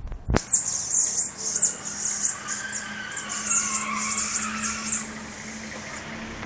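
A small bird chirping rapidly in many short, very high-pitched notes, over the noise of a passing car; the chirping stops about five seconds in.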